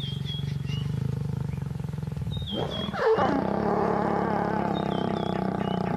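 Lions growling while mating: a low pulsing growl, then about two and a half seconds in a louder, drawn-out growl that holds to the end.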